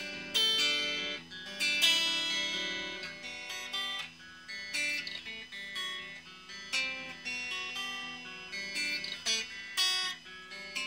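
Electric guitar played through a Raizin Sound "Vintage Champ Box" effects pedal: single picked notes and chords, each struck and left to ring out.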